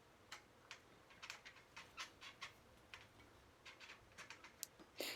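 Faint, irregular metallic clicks and taps, a dozen or more, with a louder click near the end, as a bicycle's rear wheel axle is worked into the steel frame's dropouts.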